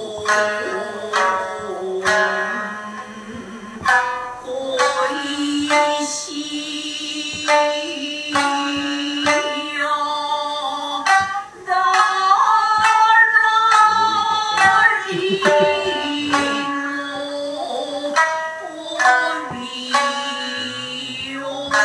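Shamisen accompaniment to a Japanese dance: sharp plucked notes with a voice singing long, drawn-out notes.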